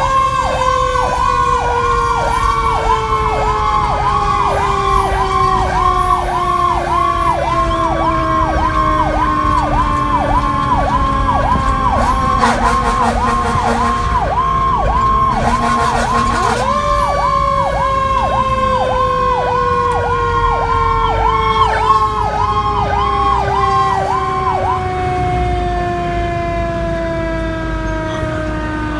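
Fire engine sirens running: a fast, repeating electronic yelp over a long, slowly falling wail that winds back up about 17 seconds in and falls again. A few seconds of rapid pulsing come in around the middle, and the yelp stops about 25 seconds in, leaving the falling wail. Heard from inside the cab.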